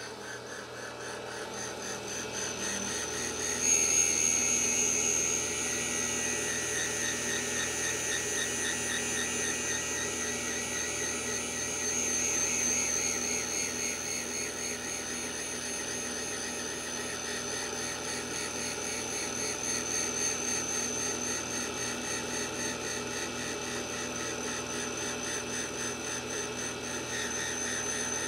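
Valve refacing grinder running, its grinding stone cutting the face of an engine exhaust valve. A steady high whine sets in about four seconds in as the stone bites, and runs on evenly.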